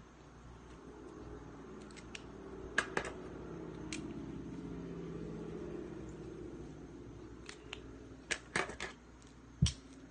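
Sharp clicks and taps of pens being uncapped, capped and set down on a table while drawing, in a small group about three seconds in and a busier group near the end, over a faint low hum.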